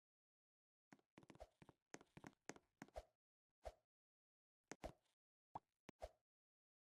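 A series of short, irregular soft knocks or taps, about a dozen, starting about a second in.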